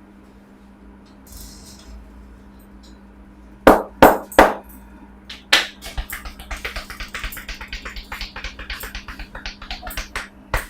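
Hands striking a person's head in an Indian head massage: three loud slaps in quick succession, then after another slap a fast rhythmic run of pats and taps, several a second, ending in one sharp slap.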